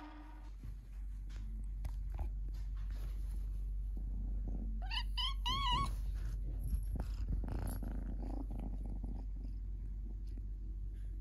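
Orange tabby kitten purring steadily close to the microphone, with a quick run of about five short, high chirping calls about five seconds in.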